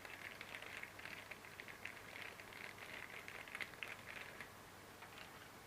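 Faint crinkling and small clicks from small plastic accessories and their packaging being handled, dying away near the end.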